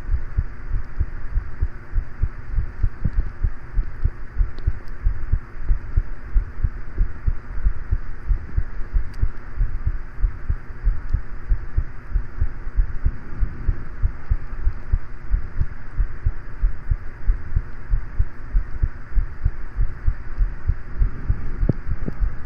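A person's heartbeat: a steady, even run of low thuds, with the steady hum of a fan behind it.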